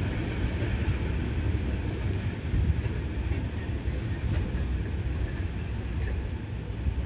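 Tank cars of a Union Pacific freight train rolling away along the track: a steady low rumble of wheels on rail with a few faint clicks.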